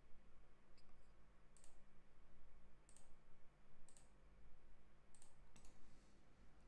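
Computer mouse button clicking: about six faint, sharp clicks, roughly a second apart, over a low steady hum.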